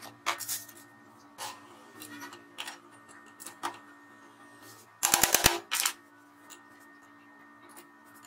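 Handling noises from a new cut-off saw armature and its cardboard box: scattered light clicks and knocks, then a quick loud run of metal knocks about five seconds in and a single knock just after, as the armature is set onto a steel bench vise.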